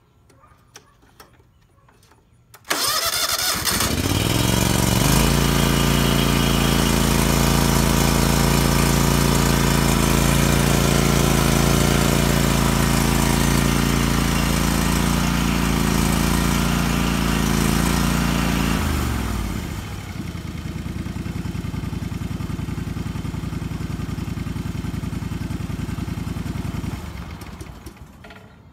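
John Deere LX277 lawn tractor engine starting from cold, catching quickly about three seconds in and running steadily at high throttle. At about 19 s it is throttled back to a lower idle, and it shuts off a little before the end.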